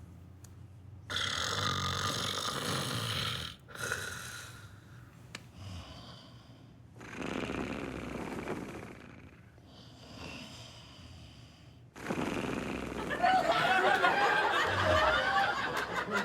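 Exaggerated comic snoring: several long snores separated by short pauses, the loudest near the end.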